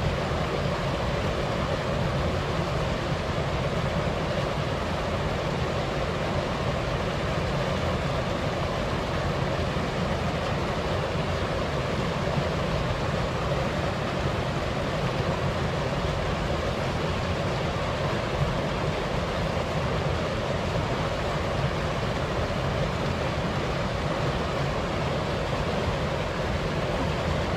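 Steady rushing of a waterfall and wind, an even, unbroken noise with no gusts or separate sounds.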